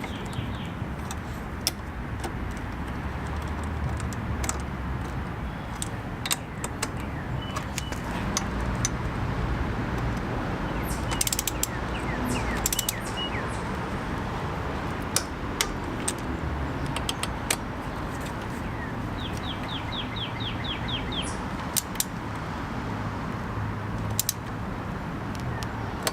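Hand tools working on motorcycle bolts: a ratchet wrench clicking in short quick runs, with scattered metal clinks and knocks of tools and parts.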